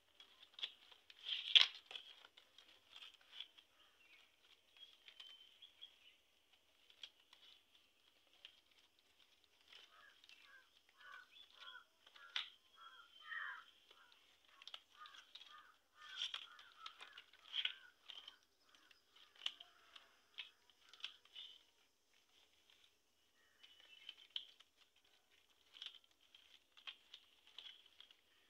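Dry coconut-palm leaflets rustling and crackling faintly as they are folded and plaited by hand into a frond mat, with scattered sharp clicks; the loudest click comes about a second and a half in.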